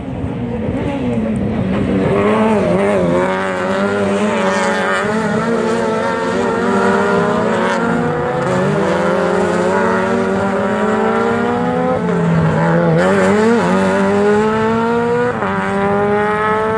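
Red Bull Global Rallycross cars with turbocharged four-cylinder engines racing past at full throttle. The engine notes climb steadily and drop sharply at each upshift, several times over, as the cars accelerate through the gears.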